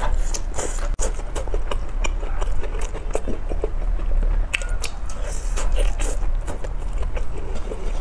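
Close-up sounds of biting and chewing fried food skewers (zha chuan'r): irregular wet clicks and snaps as pieces are bitten off the sticks and chewed, over a steady low hum.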